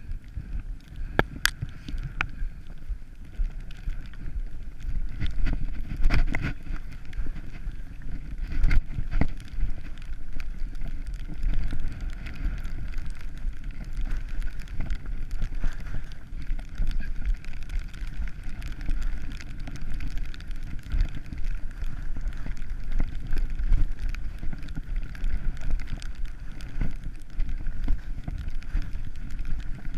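Skis sliding and scraping over packed snow on a downhill run, with wind rumbling on a body-worn camera's microphone and many sharp clicks and clatters, louder a couple of times in the first ten seconds.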